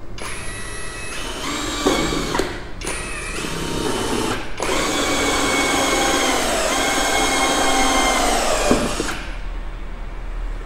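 Cordless drill spinning a hole saw through the stock rear bumper of a Lada Niva Travel, the motor whining steadily as it cuts. It stops briefly twice and cuts off about nine seconds in.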